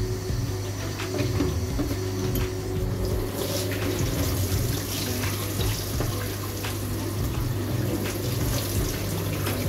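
Kitchen tap running onto a plastic cutting board being rinsed in a stainless steel sink; the water starts about a third of the way in, after a few light knocks of the board being handled.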